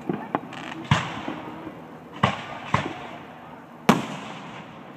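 Aerial firework shells bursting overhead: about six sharp bangs spread through the five seconds, the loudest about a second in and about four seconds in, each dying away in a short echo.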